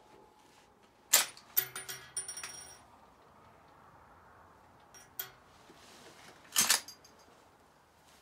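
A spent brass case ejected from a Mannlicher M95 straight-pull rifle clatters and rings on a concrete shooting bench about a second in. Small clicks of the action come near five seconds, and another loud metallic clack follows a little after six seconds.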